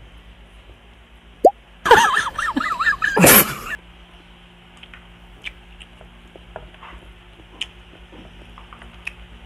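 A short comic sound effect, edited in about two seconds in, lasting about two seconds with wavering pitched tones. Before and after it come faint mouth clicks and smacks from chewing food.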